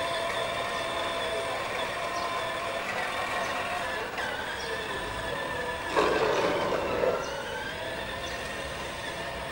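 Electric motor and gearbox of a child's battery-powered ride-on toy motorbike whining steadily as it drives, with a louder, rougher stretch about six seconds in.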